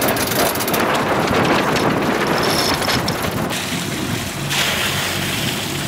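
Wind buffeting the microphone and water rushing and splashing along the hull of a sailboat under way. The noise is steady but shifts abruptly twice near the middle.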